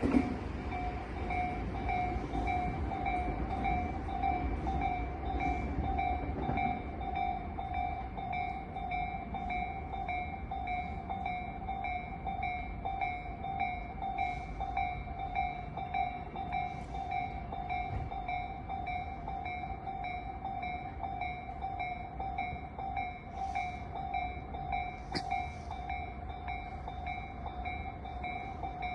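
Japanese electronic level-crossing alarm ringing: a single pitched tone repeating at an even pace, over a low rumble.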